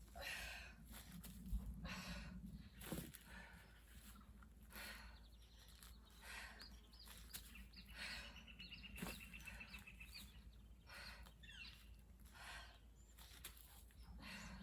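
Faint, hard breaths every second or so from a person exerting herself through exercise reps. Small birds chirp around her, with a rapid trill of notes about eight seconds in.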